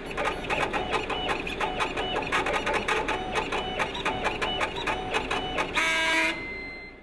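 Rhythmic mechanical clicking, about four clicks a second, like a printer running, with short electronic tones mixed in. It ends in a brief held chord about six seconds in, then fades out.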